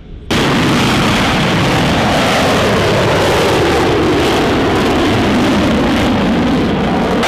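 Twin jet engines of an F-22 Raptor fighter at high power as it flies overhead: a loud, steady jet noise that cuts in suddenly about a third of a second in.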